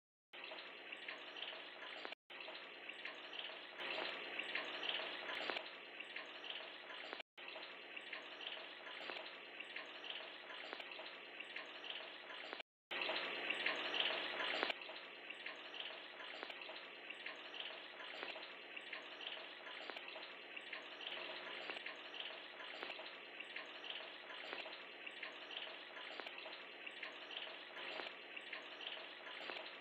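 Steady trickle and splash of running water in an aquarium. It drops out briefly three times and is louder for a couple of seconds just after the third dropout.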